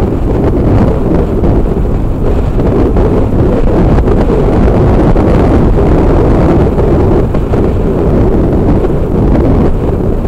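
Steady, loud wind rumble buffeting the microphone of a motorcycle at highway speed. The Yamaha XT 350's single-cylinder four-stroke engine runs underneath the wind.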